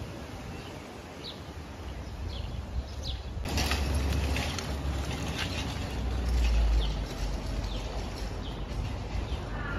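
Outdoor street ambience: small birds chirping repeatedly in short falling notes, with a deep rumbling, rushing noise that swells suddenly about three and a half seconds in and is loudest around six to seven seconds.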